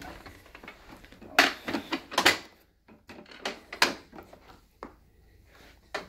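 Hard plastic clicks and knocks from the on-board hose and extension wand of a Dirt Devil Featherlite upright vacuum being handled. They come in two clusters, about a second and a half in and again about three and a half seconds in.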